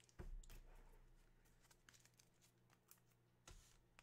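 Near silence in a small room with a faint steady hum, broken by a soft thump just after the start and a few faint clicks from trading cards being handled on a tabletop.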